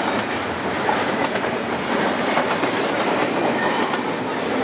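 Double-stack container freight train rolling past close by, a steady rumble and rattle of its well cars with the wheels clicking over the rails.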